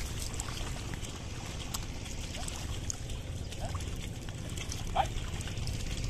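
Water and mud sloshing and trickling as a wooden leveller board is dragged by a pair of bullocks through a flooded paddy field, over a steady low rumble. A few short calls are heard, the loudest about five seconds in.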